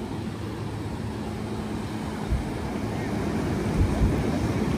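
Ocean surf breaking along the shore as a steady low rumble, with a few low thumps of wind buffeting the microphone and a faint steady low hum underneath that slowly grows louder.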